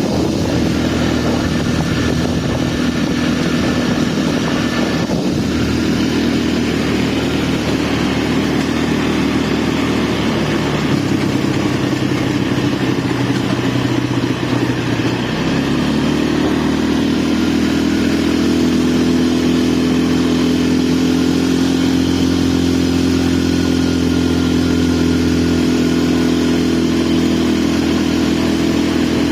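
ATV engine running steadily while riding; its note shifts about eleven seconds in, then rises around sixteen seconds and holds at the higher pitch.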